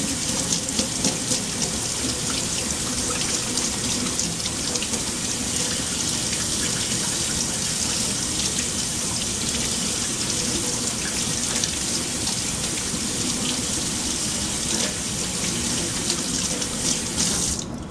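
Kitchen tap running steadily into the sink, stopping just before the end.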